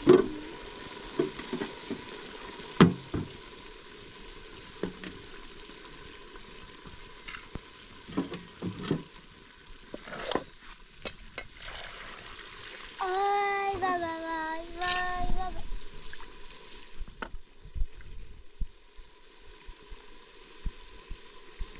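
Large pot of diced potatoes boiling over a wood fire, a steady hiss, with scattered sharp knocks and clinks of a knife and cookware.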